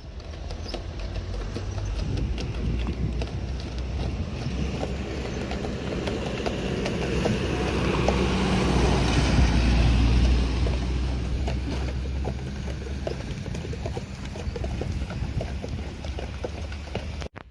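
4x4 vehicle driving over a rough mountain track: a steady low engine and road rumble with many rattles and knocks from the bumps, swelling louder toward the middle, then cutting off suddenly near the end.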